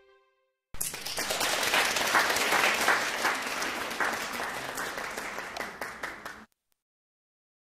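Canned audience applause, a dense patter of many clapping hands that starts abruptly about a second in. It is loudest early on, slowly thins, and cuts off suddenly near the end.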